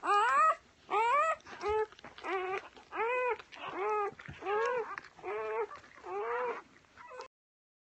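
Newborn golden retriever puppy crying: a rapid series of about ten short, high whining squeals, each rising then falling in pitch. The squeals cut off abruptly near the end.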